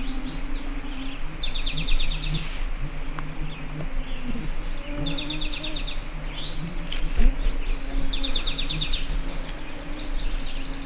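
A songbird singing a short, rapid trill about every three seconds, over the low buzz of insects flying close by.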